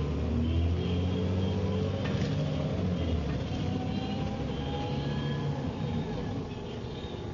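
Dennis Trident double-decker bus heard from inside while under way: the diesel engine drones low, and the drive axle's whine rises slowly in pitch over the last few seconds.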